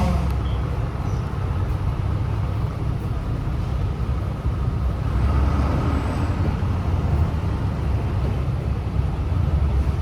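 Road traffic passing by: a steady low rumble of cars and motorbikes, swelling as a vehicle goes past about halfway through.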